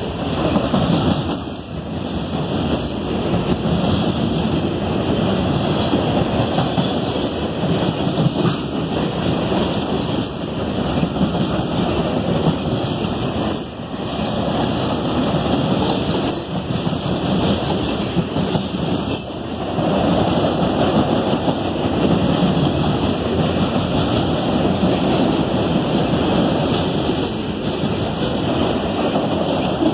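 Freight cars of a manifest train rolling past close by, crossing a short bridge: steady noise of steel wheels running on the rails, dipping briefly twice as the cars go by.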